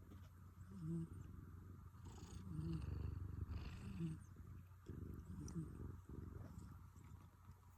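A domestic cat snoring in its sleep: quiet, rhythmic snores with a breathy rasp, one roughly every one and a half seconds over a low rumble.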